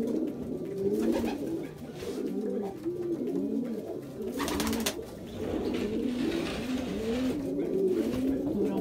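A loft full of male racing pigeons cooing, many overlapping rising-and-falling coos at once. A brief noisy rustle cuts across about halfway through.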